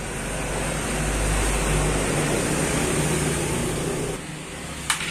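An engine running steadily with a low hum, dropping away about four seconds in. A single sharp metallic click comes near the end.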